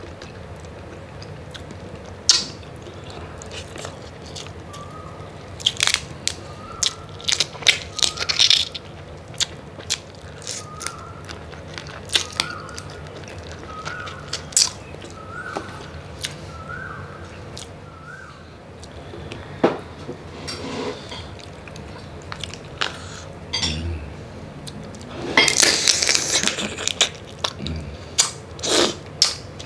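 Close-miked eating of cooked mud crab and tiger prawn: irregular cracking and crunching as shells are bitten and broken, with chewing between. The crunches are heaviest about six to nine seconds in and again near the end.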